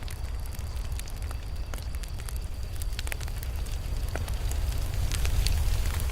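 Campfire burning, with a steady low rumble of flames and frequent sharp crackles and pops from the wood, getting busier about two-thirds of the way in.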